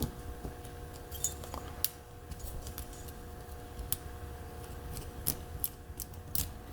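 Scattered light metallic clicks and ticks of small metal lock parts being handled and unscrewed as a padlock core is taken apart, a few more closely spaced toward the end.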